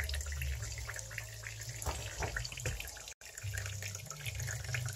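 Water trickling and dripping in a kitchen sink, with many scattered light clicks and taps.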